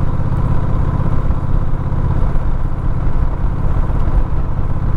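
Steady low rumble of a moving vehicle, engine and road noise, holding an even level.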